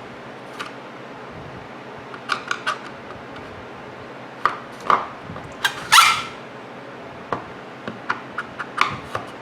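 Sharp clicks and taps of a small Phillips screwdriver and loosened screws against the clock's frame as the screws are taken out. Three quick clicks come about two seconds in, and the loudest, a ringing metal clink, about six seconds in.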